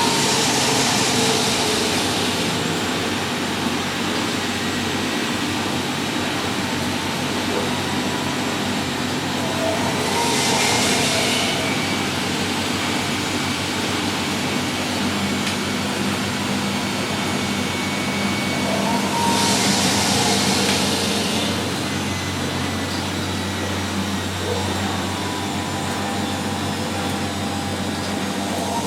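Three washing machines, a Miele, a Euronova and a Sparmeister, spinning at the same time with a steady whir. A high hissing swell comes back about every nine to ten seconds.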